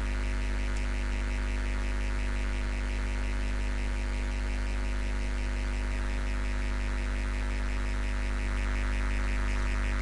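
Steady electrical mains-type hum, a low drone with a faint fast buzz above it.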